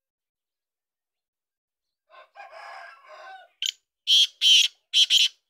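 Black francolin (kala teetar) calling. A quieter lead-in about two seconds in is followed near the end by several loud, rasping notes in quick succession.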